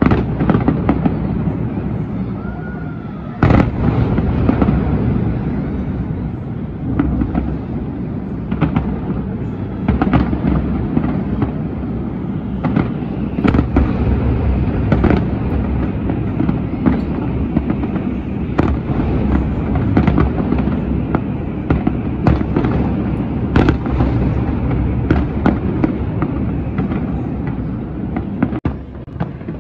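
Fireworks display: a dense, continuous barrage of rumbling shell bursts with many sharp cracks and bangs overlapping. It starts abruptly and grows louder about three and a half seconds in.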